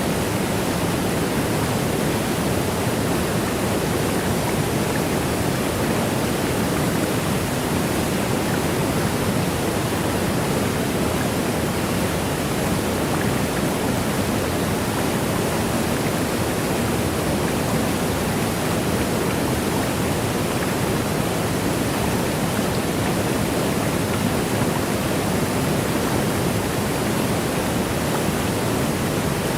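Waterfall: a steady, unbroken rush of falling water that stays even in level, fullest in its low, deep part.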